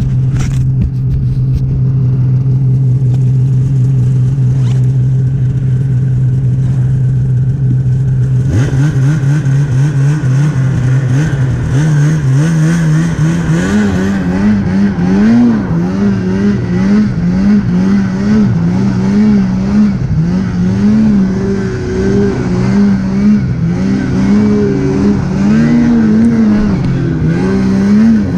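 Snowmobile engine holding a steady note, then from about eight seconds in revving up and down over and over as the throttle is worked.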